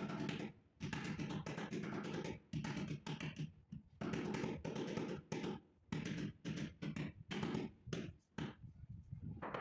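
White rubber mallet tapping a white marble stair slab to bed it down into fresh mortar. The dull taps come in quick runs with short pauses between.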